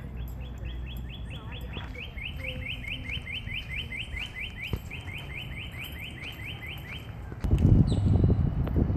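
A bird singing a long, fast trill of repeated short, slightly falling notes, about five or six a second, that stops after about seven seconds. Near the end a loud low rumbling noise starts.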